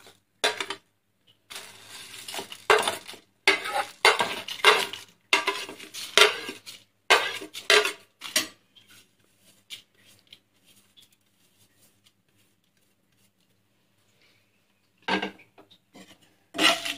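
Steel spoon scraping and clinking against a plate and pan as dry whole spices are pushed off into the pan, in a quick run of sharp scrapes. After a quiet stretch with only faint ticks, a few more scrapes come near the end.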